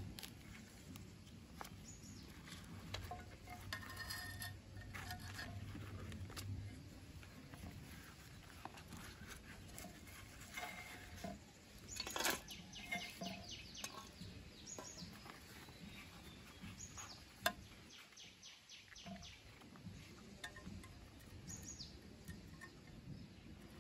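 Knife cutting and scraping at a banana flower's stem and bracts, quiet scattered clicks and short strokes, with a sharp knock about halfway through and another about three-quarters of the way. Faint bird calls in the background.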